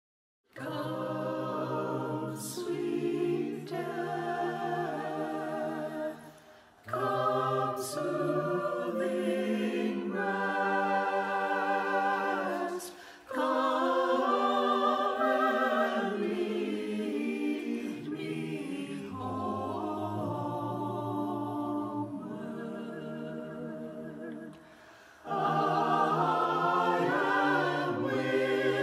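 Small mixed choir of men's and women's voices singing together, each singer recorded separately and mixed into one virtual choir. It starts about half a second in and sings in phrases, with short breaks about 6, 13 and 25 seconds in.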